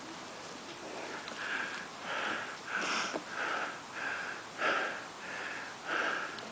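Rapid, heavy breathing close to the microphone: a quick rhythm of hissing breaths, about one and a half a second, from a player out of breath while moving during an airsoft game.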